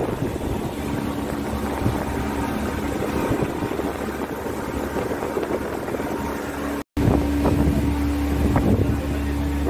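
Tourist boat's engine running steadily under a haze of wind and water noise. The sound cuts out for a moment about seven seconds in, and the engine hum comes back a little louder.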